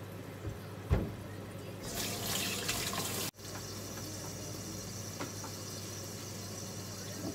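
A louder rush of running water from the kitchen tap for about a second and a half, cutting off abruptly, over the steady hiss of hamburger patties frying in a covered pan. A single thump about a second in.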